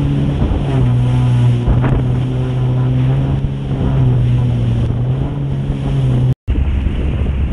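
A jet ski's engine runs steadily at cruising speed, with wind buffeting the microphone and water noise underneath. About six seconds in the sound drops out for a moment, and a lower, steadier rumble with wind follows.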